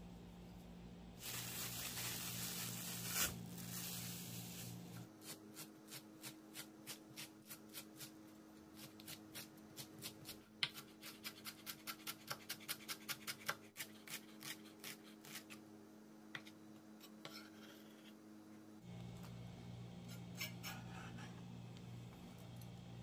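Chef's knife mincing green onion on a bamboo cutting board: a long run of quick knocks that speeds up in the middle, after a few seconds of rustling near the start.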